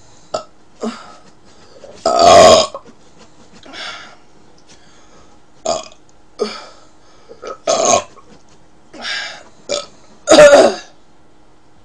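A woman burping loudly twice, once about two seconds in and again near the end, each burp lasting about half a second. Shorter, quieter mouth and throat sounds come between the two.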